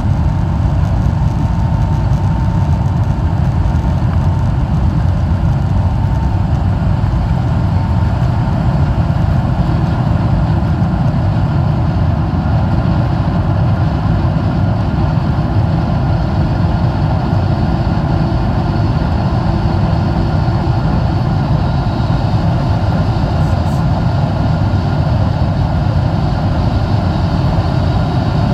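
Cabin noise of a Boeing 777-300ER at takeoff thrust, heard inside the cabin: a steady, loud, deep rumble of its two GE90 turbofans and the airflow as the jet lifts off and climbs out.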